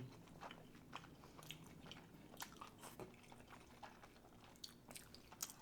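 Faint chewing and mouth sounds: soft wet smacks and small clicks scattered irregularly, with no speech.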